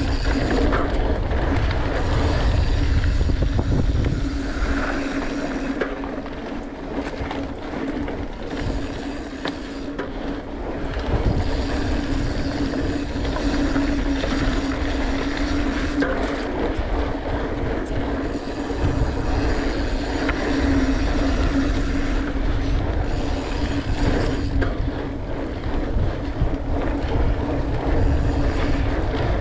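Norco Torrent Steel hardtail mountain bike rolling down a dirt trail: tyres on dirt, with rattle and a steady buzz that fits the rear hub freewheeling while coasting. Heavy wind rumble on the camera microphone eases for a few seconds after the start and again near the end.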